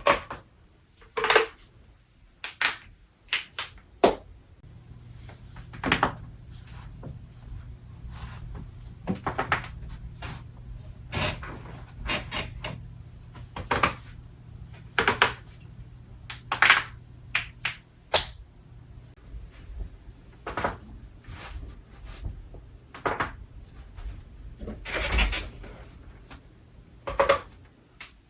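A person's joints cracking loudly: a series of sharp cracks and pops, about two dozen at irregular intervals, some in quick pairs.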